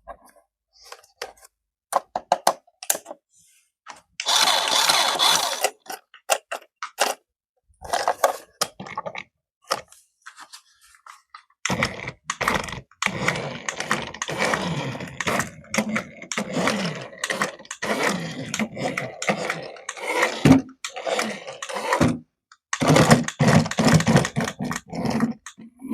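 Handling sounds of unboxing a toy car: scattered clicks and knocks, a rustling scrape about four seconds in, and a longer run of scraping and rattling through the second half.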